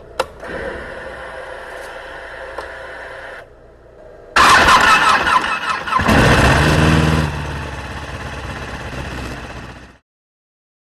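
Ducati Panigale 1199's V-twin engine being started: a quieter stretch first, then it catches suddenly about four seconds in, swells once around six seconds, settles into a steady run, and cuts off abruptly near the end.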